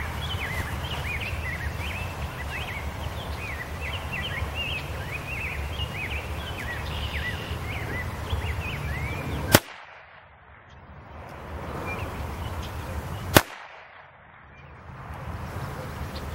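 Small birds chirp over a low outdoor rumble. About ten seconds in, a Rossi Model 13 .22 revolver fires two sharp, short cracks about four seconds apart. It is shooting .22 Short rounds, fired double action.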